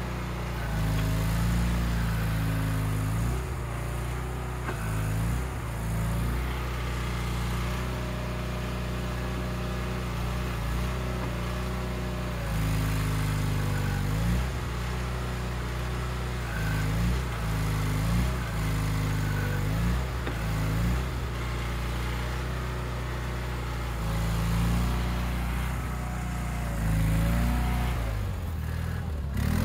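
Garden tractor engine running steadily while the tractor drives and works its front loader. The note dips and swells slightly now and then as the load changes.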